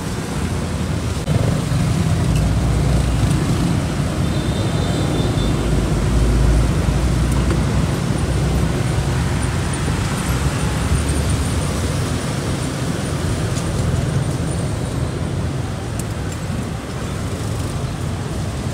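Steady road traffic: motorbikes and cars passing on a busy street, a continuous low engine rumble.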